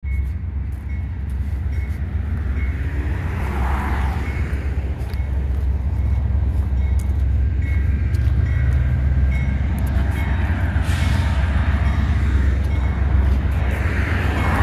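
Norfolk Southern train rolling past: a steady low rumble that slowly grows louder, with a faint high tone coming and going above it.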